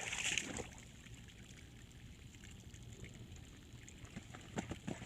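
Puppies splashing in pond water: a short splash right at the start, faint sloshing after it, and a few more splashes near the end.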